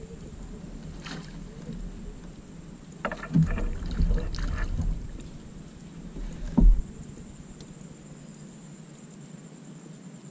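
Knocks and rustles of fishing gear being handled aboard a kayak, over a low rumble, with a cluster of handling sounds a few seconds in. One sharper thump about six and a half seconds in is the loudest sound.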